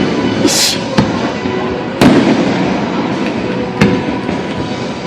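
Aerial fireworks exploding: a brief crackling hiss about half a second in, then three sharp bangs over a steady rumble of more distant bursts.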